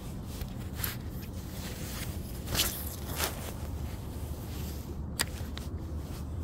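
A few short scrapes and knocks, the loudest about two and a half seconds in, over a steady low rumble.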